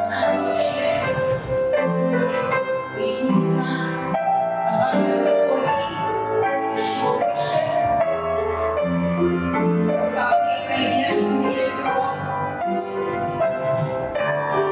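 Piano music accompanying a folk-dance barre exercise, with notes changing steadily and sharp taps scattered through it.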